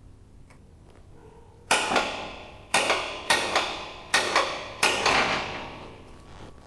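About seven sharp metal clangs at uneven intervals over some three seconds, each ringing out briefly: steel being struck in a fabrication shop.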